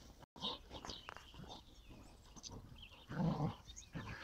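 Two dogs play-fighting, with a few brief dog vocalizations, the loudest about three seconds in.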